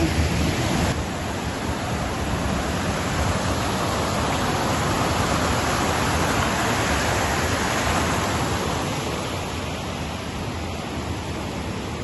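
Water rushing over a rocky cascade: a steady, even rush of white water, a little quieter in the last few seconds.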